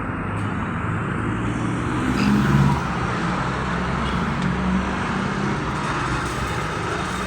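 Steady motor-vehicle engine noise, like road traffic, with a brief louder swell a little past two seconds in.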